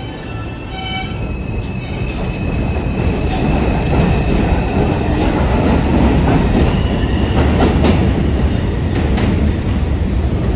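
New York City Subway R142 train pulling out of the station. Its electric propulsion whine climbs in pitch as it accelerates, over a rumble of wheels on rail that grows louder in the first few seconds, with clacks over rail joints later on. A brief tone sounds just before it gets under way.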